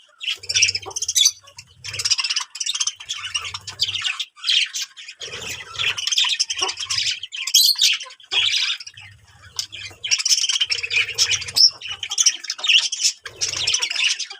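Many birds calling at once: a dense, near-continuous chatter of chirps and squawks, with a few brief pauses.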